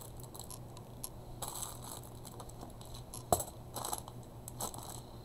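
A few light clicks and taps of supplies being handled on a table, the sharpest about three seconds in. They come from a clear plastic compartment case of small metal ribbon-end findings being moved and set down, its metal pieces clinking.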